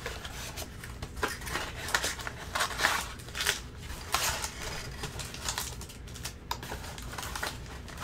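Trading-card blaster box and its packs being opened by hand: irregular crinkling, tearing and scraping of plastic wrap, foil and cardboard.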